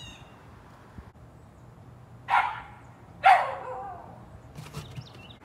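A dog barks twice, about a second apart.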